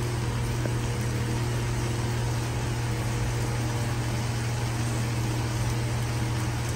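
Steady low mechanical hum with an even hiss over it, from running kitchen machinery such as a fan or appliance motor.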